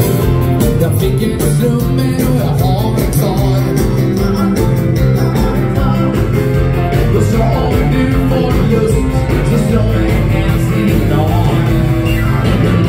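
Live dance band playing: electric guitar, keyboard and drums with a steady beat, and a singing voice.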